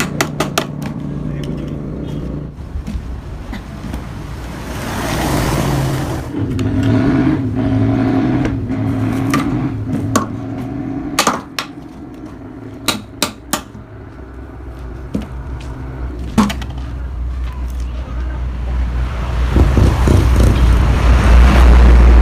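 Hammer blows on metal: a quick run of strikes at the start, then scattered single knocks over a steady low hum. A motor vehicle's engine rumble builds up and is loudest near the end.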